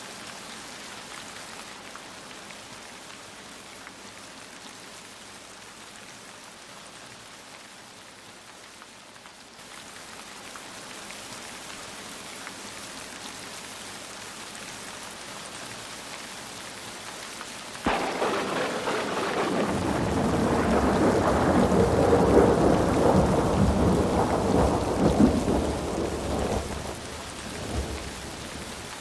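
Steady rain falling, then about eighteen seconds in a sudden crack of thunder that rolls on loudly for several seconds and dies away near the end, with the rain continuing underneath.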